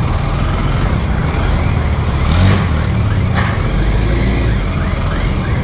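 Motorcycle engine running at low speed as the bike rides off, its note rising and falling with the throttle.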